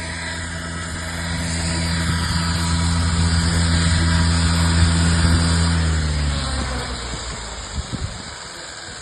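A motor running steadily and growing louder, then dropping in pitch and fading away from about six seconds in.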